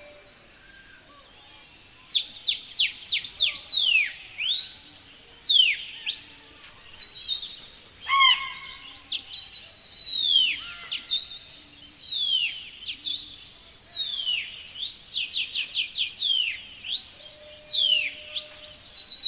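Loud, shrill human whistling, as pigeon flyers use to drive their birds, starting about two seconds in. It runs as quick falling whistles, long rising-then-falling notes and warbling trills, repeated with short gaps.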